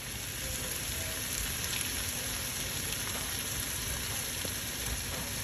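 Grouper fillets and sliced onions frying in hot oil in a pan: a steady sizzle with a few faint pops.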